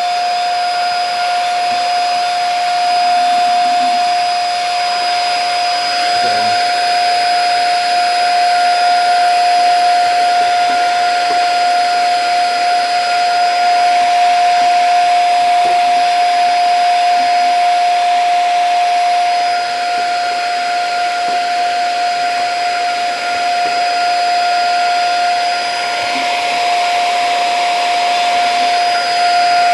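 Vacuum cleaner running through its hose attachment, sucking up dust from under a refrigerator: a loud, steady motor whine with airflow hiss, its loudness dipping slightly a couple of times.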